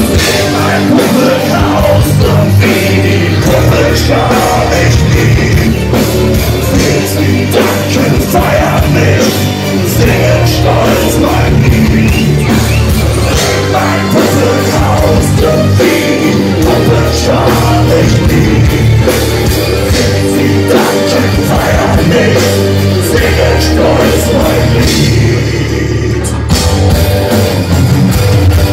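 A metal band playing live and loud, heard from among the audience: distorted electric guitar, bass guitar and drum kit running without a break, with vocals over them.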